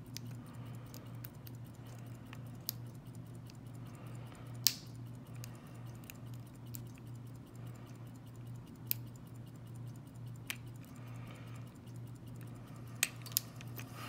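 Hook pick working the pin stack of a Master Lock lockout-tagout padlock under light tension: faint scattered ticks and scrapes with about six sharper clicks, over a steady low hum.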